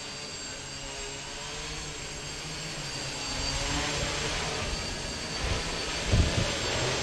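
3D-printed quadcopter's electric motors and propellers buzzing in flight, growing louder as it flies in close, with a few low thumps near the end.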